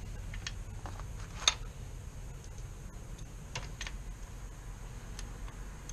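A few scattered light clicks and taps of the oil drain plug being threaded back into a Kawasaki Ninja 400's engine by hand, the sharpest about one and a half seconds in, over a low steady background rumble.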